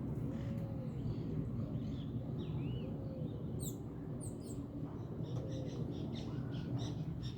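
Several birds calling: short high chirps and quick arched notes, a denser run of chirps in the second half, and a lower arched note about every two and a half seconds, over a steady low rumble.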